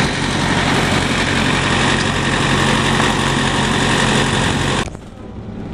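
Bus engine idling close by, a steady low hum with mechanical noise, which cuts off abruptly about five seconds in.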